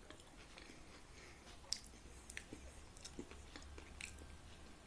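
Faint chewing of a mouthful of taco gratin, with a few short sharp clicks.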